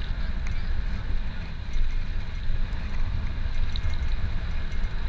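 Wind buffeting the microphone of a camera riding on a moving bicycle: a steady, gusting low rumble with a faint rush of air above it.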